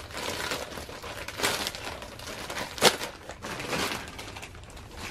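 Plastic poly mailer bag crinkling and rustling as it is handled and opened, in irregular bursts, with one sharp, loud crackle about three seconds in.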